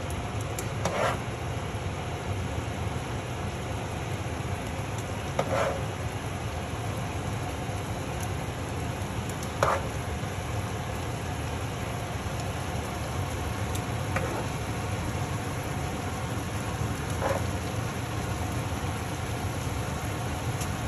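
Sauce with shrimp and pasta sizzling steadily in a sauté pan on the stove, with a low steady hum under it. Four or five brief pops or clicks come a few seconds apart.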